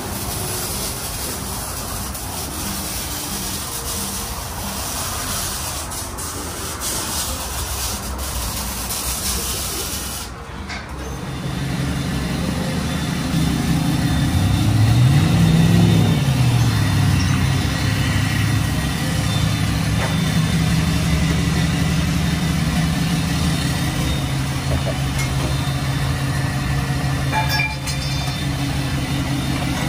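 A steady hiss for the first third. Then a truck engine runs at idle through its exhaust, revs up once briefly and drops back to a steady idle.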